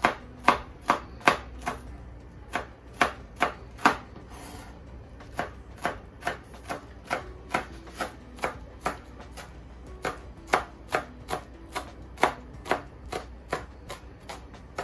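Knife chopping shallot stems on a plastic cutting board: a steady run of sharp knocks, about three a second, with a few short pauses.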